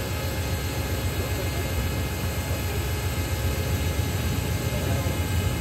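A standing Amtrak Superliner passenger train idling beside the platform: a steady low rumble.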